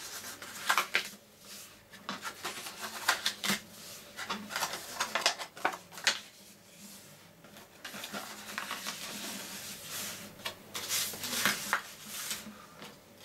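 Scored patterned paper being folded and creased by hand: irregular crisp crackles and rustles, with sharper creasing clicks now and then.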